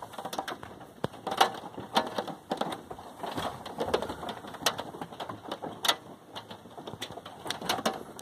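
Rain falling on a van: irregular sharp ticks of single drops over a light hiss.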